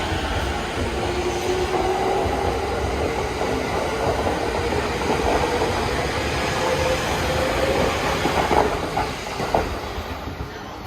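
E231 series electric train accelerating away, its traction motors and inverter giving a whine that slowly rises in pitch over the rumble of the wheels, with a few clacks over rail joints. The sound fades near the end as the train moves off.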